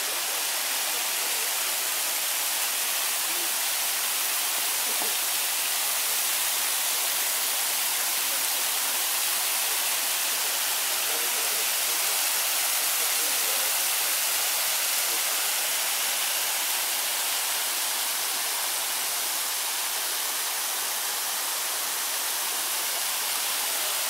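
Bigăr waterfall: water falling in many thin streams over a moss-covered rock ledge and splashing into the pool below, a steady even hiss.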